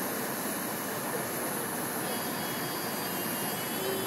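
Steady jet engine noise from a Boeing 737-800's CFM56 turbofans as the airliner takes off.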